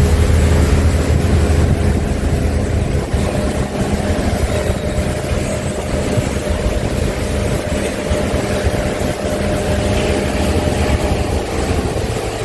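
Motorboat engine running steadily under way, with a continuous rushing noise over its hum.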